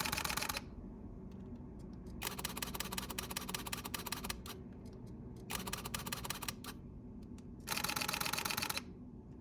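Fujifilm X-Pro series camera shutters firing in continuous-shooting bursts, each a rapid string of clicks several frames a second. A burst ends about half a second in, a longer burst of about two seconds follows, then two shorter bursts of about a second each.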